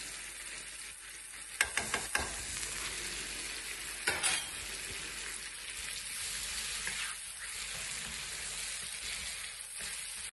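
Spiced chermoula sauce sizzling in oil in a frying pan, with a steady hiss while a wooden spoon stirs it. A few sharp clicks come from spoons against the pan about a second and a half in, and a louder scrape or knock about four seconds in.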